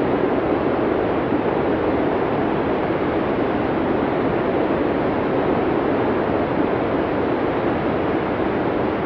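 A steady, even rushing noise with no rhythm or tone, a dubbed-in sound effect.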